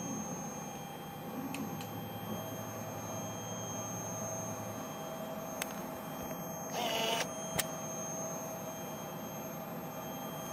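Emco E25 TCM CNC turning centre standing idle with its spindle stopped: a steady machine hum with a faint high whine, a few light clicks, and a short burst of noise about seven seconds in.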